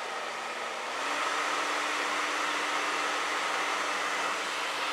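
Hand-held hair dryer running, blowing hot air: a steady rush of air over a motor hum. About a second in it gets louder and its hum rises slightly in pitch.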